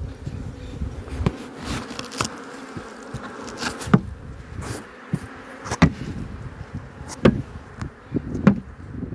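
Honeybees buzzing around open hive boxes, with several irregular sharp wooden knocks as frames and boxes are handled and the bees are shaken off the frames.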